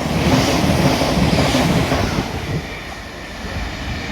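Electric multiple-unit passenger train running past at the platform, a loud rushing rumble of wheels and air that eases slightly after the first couple of seconds.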